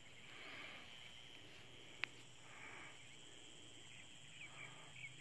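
Faint outdoor ambience: a steady high insect trill, a few faint bird-like chirps in the second half, and a single brief click about two seconds in.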